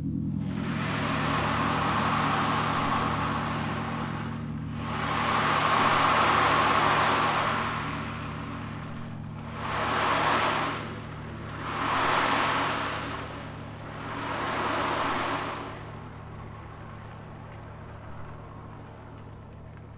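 Ocean drum: beads rolled across the drumhead in five swelling, wave-like surges of hiss, over the steady low hum of a ringing gong. The surges stop about four-fifths of the way through, leaving the gong's hum.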